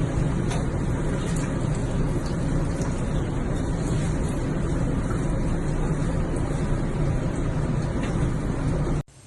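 A steady, loud rumbling noise with hiss, heaviest in the low end, which cuts off abruptly near the end.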